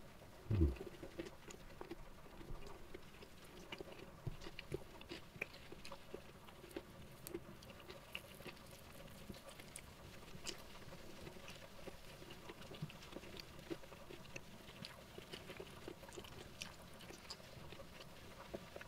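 Close-up chewing and mouth sounds of a person eating rice with side dishes by hand: many small irregular wet clicks and smacks, with one dull low thump about half a second in.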